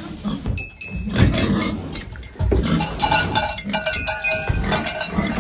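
Dry hay rustling and crackling as it is scooped up by the armful and carried, with livestock in the barn calling briefly.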